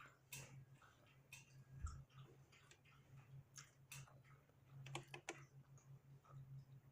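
Faint chewing and small wet mouth clicks from eating a sloppy joe, as scattered irregular ticks, with a steady low hum underneath.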